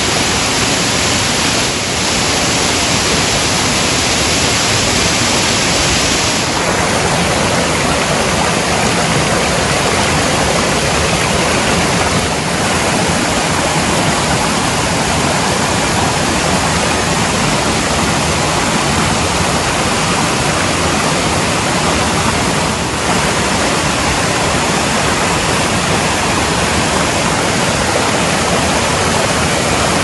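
The 70-metre Sendan Todoroki waterfall: a steady, loud rush of falling water and the stream below, a little brighter and hissier for the first six seconds or so.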